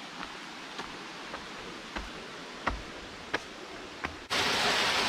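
Footsteps on a path, about one every half second to second, over a low steady rush of water. About four seconds in, a loud, even rush of falling water cuts in suddenly and takes over.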